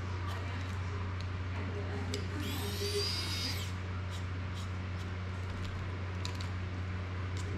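Precision screwdriver working small screws into a drone frame: scattered light clicks and taps, with a short high whine about two and a half seconds in, over a steady low hum.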